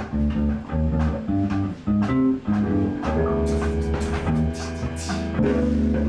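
Rock band playing: electric bass guitar carrying a moving bass line under guitar, with drum kit and cymbal strokes in the second half.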